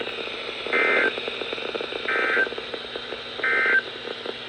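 NOAA Weather Radio end-of-message (EOM) SAME data bursts: three short, shrill digital squawks about a second and a half apart, over steady radio hiss. They mark the close of the required weekly test broadcast.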